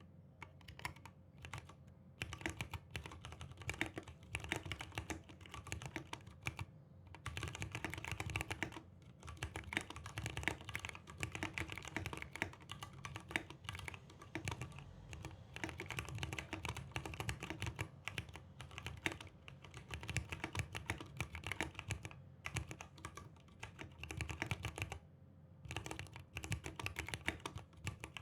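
Typing on a new mechanical keyboard: a dense run of key clicks, broken by a few short pauses. The switches are not yet lubricated, and the owner finds their springs too loud.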